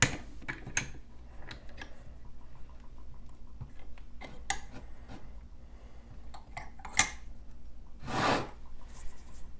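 Small metal clicks and clinks of a padlock and lockpicking tools being handled, a few scattered ticks with a sharper click about seven seconds in, then a brief rustle about eight seconds in.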